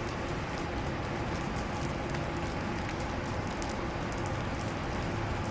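Steady rain falling: an even hiss dotted with small ticks of drops hitting a surface, with a faint steady hum underneath.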